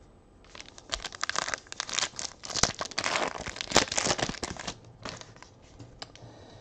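Foil wrapper of a Panini Rookies & Stars football card pack being torn open and crinkled by hand: a run of crackling and tearing that starts about half a second in and stops near five seconds.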